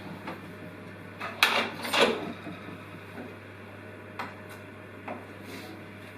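Clunks and clicks as the Kenwood Cooking Chef stand mixer is opened up and its parts handled: two loud knocks about a second and a half and two seconds in, then a few lighter clicks.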